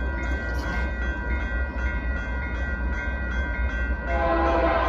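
Grade-crossing warning bell ringing in a rapid, even ding, about three strokes a second. About four seconds in, the approaching Union Pacific locomotive's air horn comes in as a loud, sustained chord over the bell.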